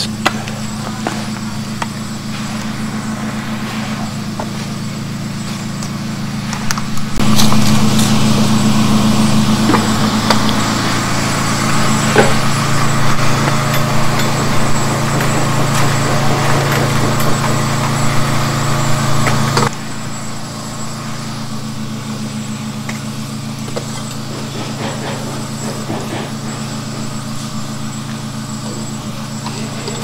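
A motor engine running steadily with a low, even hum. It gets louder about seven seconds in and drops back about twenty seconds in, with a few scattered clicks and knocks over it.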